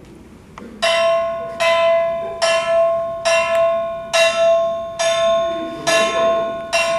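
A bell struck at a slow, even pace, about eight strokes a little under a second apart. Each stroke is one clear high tone that rings and fades before the next.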